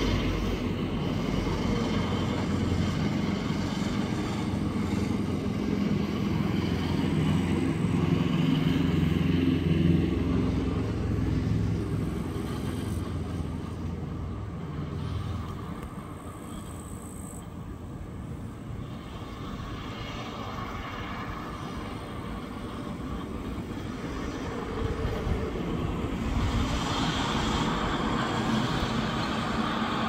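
Motor vehicle engine rumble, like passing traffic, louder over the first half, dying down around the middle and building again near the end.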